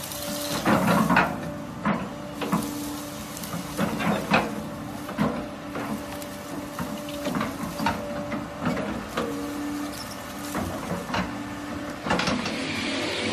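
Doosan tracked excavator running with a steady hum while its grapple rake tears through dry brush, the brush crackling and branches snapping irregularly. Near the end a louder steady rushing noise comes in.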